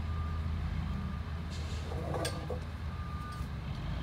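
Tractor engine running steadily, with a few faint short high beeps and a single click about two seconds in.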